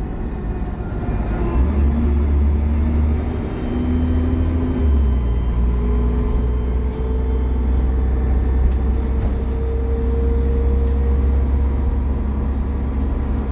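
Dennis Trident double-decker bus engine running under load, a heavy rumble with a tone that climbs, drops back about five seconds in, then rises slowly again as the bus gathers speed.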